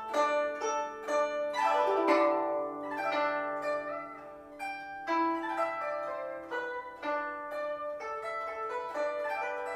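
Guzheng music: a Chinese zither playing a quick melody of plucked notes, with a falling run of notes about two seconds in.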